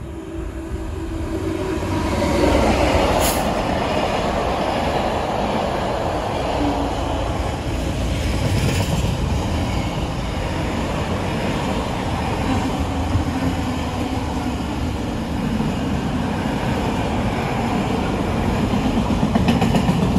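Freightliner Class 66 diesel locomotives passing close, the noise building to its loudest about two seconds in. A long intermodal container train then rolls steadily past, its wagon wheels rumbling and clattering on the rails.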